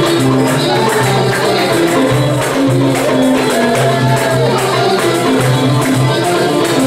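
Live band music with banjo and violin carrying the melody over a steady bass line, and hand percussion with jingles keeping an even beat.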